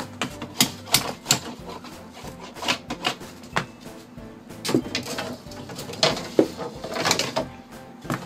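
A Japanese nata hatchet knocking the inner nodes off split bamboo strips: a series of sharp, irregular knocks of the blade on the bamboo, some in quick clusters.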